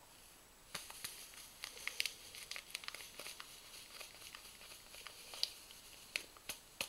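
Paper sachet of vanilla sugar crinkling as it is tipped and shaken, the sugar pouring out in a thin stream: irregular sharp crackles over a faint hiss, starting about a second in.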